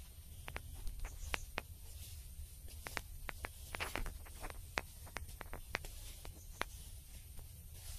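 Irregular light clicks and crackles, a few a second, over a steady low rumble.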